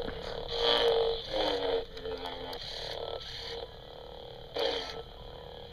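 Electronic sound effects from a talking Darth Vader toy figure's small built-in speaker, coming in several short, tinny pieces with brief gaps between them.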